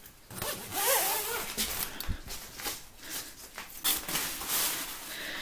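Zipper on a fabric-and-mesh pet tent being pulled along its track in several short strokes, with fabric rustling as it is handled.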